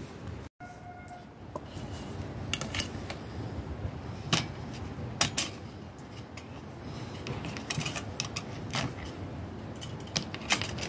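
Metal clinks and rattles of a wire grilling basket being opened and handled over a metal tray: scattered sharp clicks over steady background noise.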